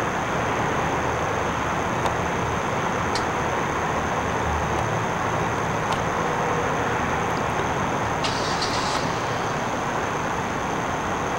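Steady outdoor background noise like distant road traffic, with a constant thin high-pitched tone over it and a few faint clicks, a small cluster of them about eight seconds in.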